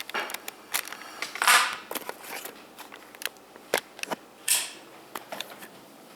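Handling noise from a camera being picked up and carried: scattered clicks and knocks with two rustling swishes, the loudest about a second and a half in and another near four and a half seconds.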